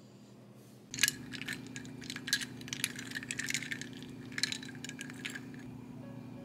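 Spoon stirring iced coffee in a glass mug, with the ice cubes and the spoon clinking against the glass in quick, uneven strikes. The clinking starts about a second in.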